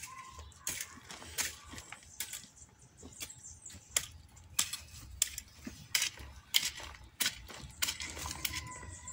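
Metal garden rake scraping and clinking through pebbly soil, in irregular sharp strokes about once or twice a second.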